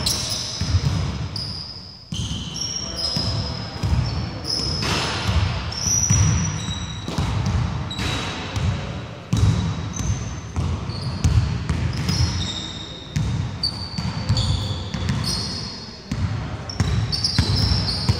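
Basketball dribbling and bouncing on a wooden court floor, repeated thumps, mixed with many short high-pitched sneaker squeaks and players' voices.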